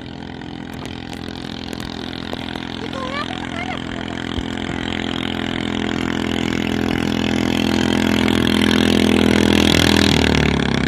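A racing boat's engine running at high revs, growing steadily louder as the boat approaches, then dropping in pitch as it passes close near the end.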